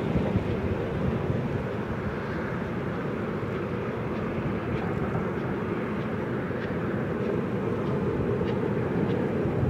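Steady distant rumble of the LMS Royal Scot class steam locomotive Scots Guardsman and its coaches running over a long steel girder bridge, mixed with wind on the microphone.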